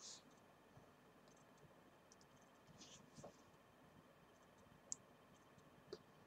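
Near silence: room tone with a handful of faint, brief clicks from fingers tapping and handling an HTC HD2 touchscreen smartphone.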